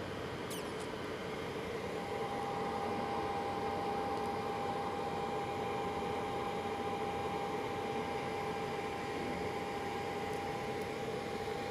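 BGA rework station's hot-air heaters and cooling fans blowing steadily while it runs a heating profile, with a steady whine joining about two seconds in.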